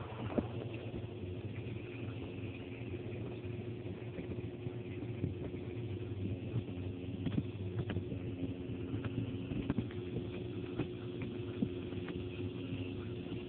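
Steady low mechanical hum heard underwater in an aquaponics fish tank, the system's water pump carried through the water to a phone sealed in a ziplock bag, with scattered sharp clicks.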